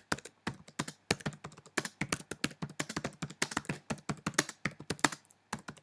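Typing on a computer keyboard: a quick, uneven run of key clicks, with a couple of brief pauses.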